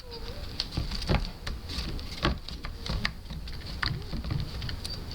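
Skateboard grip tape being worked onto a deck by hand: irregular crackling taps and scrapes, several sharp clicks a second.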